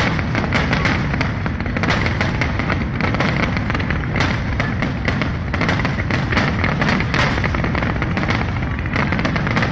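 A dense, continuous barrage of fireworks: many bursts and crackles every second with no let-up, heard over music.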